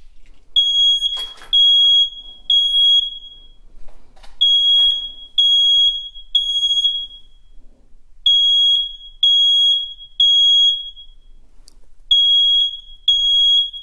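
Fire alarm sounder beeping in the temporal-three evacuation pattern: three high-pitched beeps, a pause, then again, about every four seconds. The system is in alarm, tripped by the homemade heat detector's test switch.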